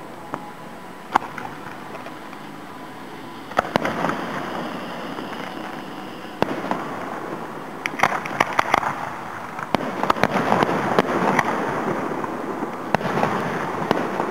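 Aerial fireworks display heard from about a quarter mile off. Single shell bursts go off a few seconds apart, with a louder one a few seconds in. From about eight seconds in comes a denser run of bangs and crackling pops.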